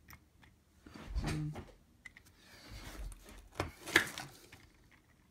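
Plastic parts of a mechanical robot arm being handled and pressed together as the knobbed top plate is seated onto the gear base. It gives scattered knocks and scraping, with a sharp click about four seconds in.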